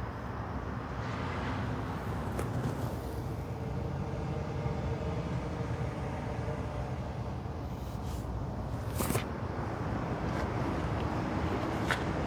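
A steady low vehicle rumble, with a few short clicks, the last just before the end.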